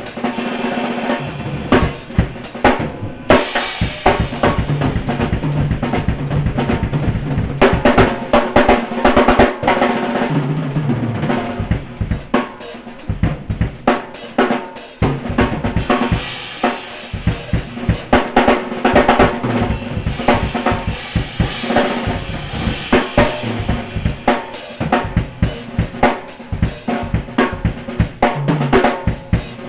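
Drum kit solo with TRX cymbals: fast, dense strokes on snare and bass drum with cymbals, played without a break.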